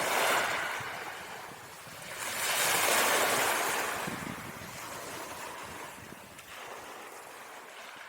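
Rushing noise like surf on a shore, swelling twice and then fading away.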